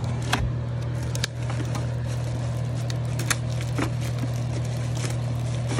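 Plastic wrapping crinkling and cardboard scraping as a speaker in its bag is pulled out of its box, with scattered crackles, over a steady low hum.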